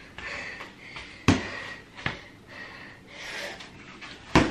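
Quiet room noise with two short sharp knocks, then a sudden loud smack near the end as a boxing-glove punch lands.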